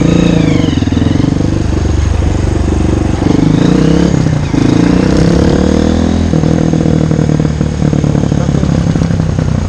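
Honda CRF230F's single-cylinder four-stroke engine running under way, its revs rising and falling several times with the throttle.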